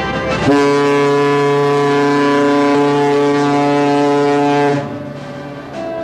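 Cruise ship's horn sounding one long, steady blast on a single deep note, starting about half a second in and cutting off abruptly about a second before the end.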